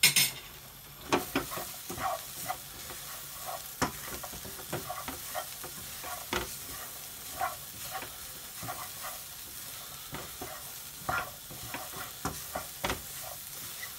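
Wooden spatula scraping and stirring chopped vegetables and ground spices around a non-stick frying pan, with a low sizzle under it, as the spices toast in the vegetables' juices on medium heat. There are repeated short scrapes and knocks of the spatula against the pan, and a sharp clatter at the very start.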